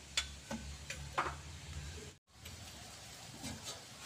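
A few faint, irregular metallic clicks and clinks of hand tools at the engine, with a sudden drop-out to silence just past two seconds in.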